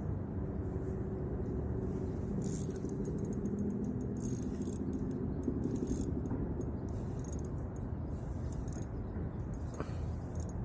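A steady low rumble with short bursts of light jangling rattle on and off.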